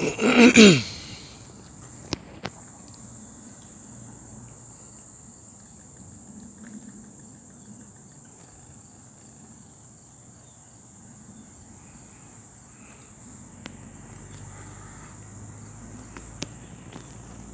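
Crickets or similar insects trilling in one steady high-pitched chorus. A brief loud rush falls in pitch about half a second in, and a few faint clicks come later.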